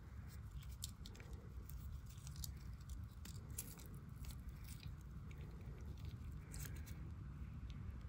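Faint clicks and rubbing from gloved hands handling a Swiss Army knife's small metal and plastic tools, a few light ticks scattered through, over a low steady hum.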